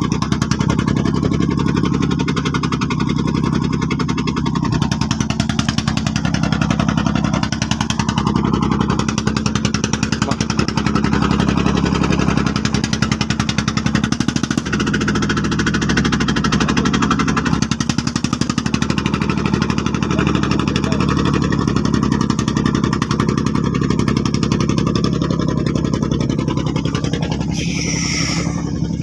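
Engine of a homemade farm truck running steadily.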